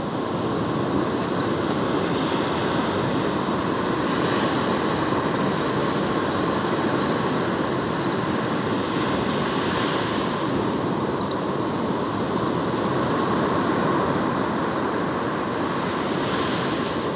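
Waves breaking and washing up a sandy beach: a steady rush of surf noise.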